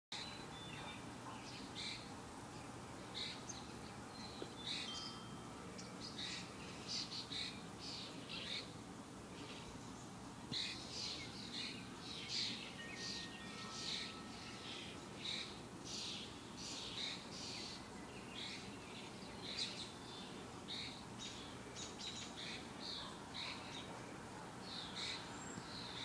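Backyard birds chirping, with many short high chirps and calls in quick succession throughout, over a steady low background rumble.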